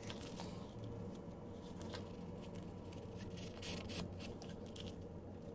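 Faint scratching of a pen writing on the back of a diamond painting canvas, with light rustling of the stiff canvas sheet and a few soft taps, over a steady low hum.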